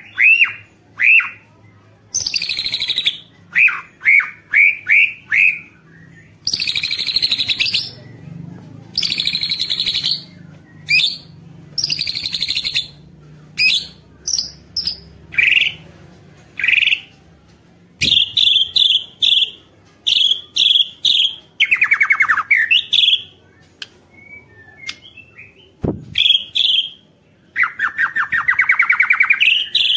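White-rumped shama (murai batu) in full song. Short clear whistled notes that slide down in pitch alternate with harsh rattling phrases and fast trills, one phrase after another with short gaps.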